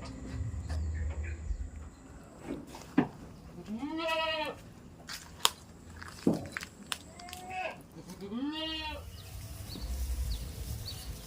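Goat bleating twice, each a wavering call under a second long, about four seconds apart, with a fainter call between them. A few sharp clicks or knocks fall between the bleats.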